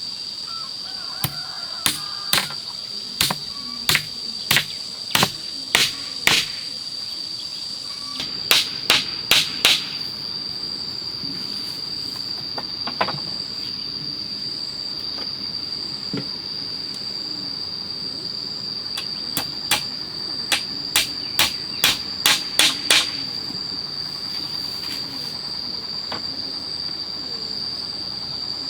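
Hammer nailing bamboo slats onto a frame to make a wall. The blows come in three runs of about nine, four and nine, roughly two a second, with a single blow between. A steady high-pitched insect drone runs underneath.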